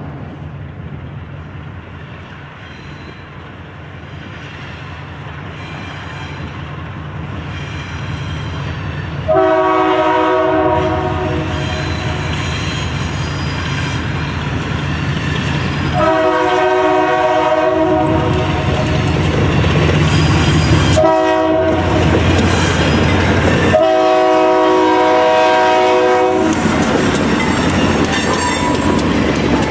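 Diesel locomotive engine running and growing steadily louder as it approaches, its air horn sounding two long blasts, a short one and a long one: the standard grade-crossing signal.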